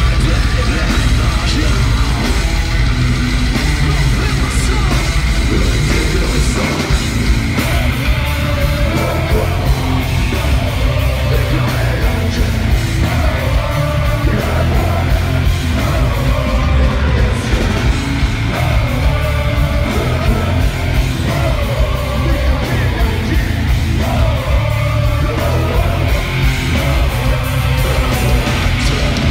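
Metal band playing live and loud: distorted electric guitars, bass and drums, with shouted vocals over the band from about eight seconds in.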